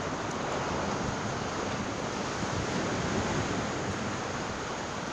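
Sea surf washing steadily against the rocks of a jetty.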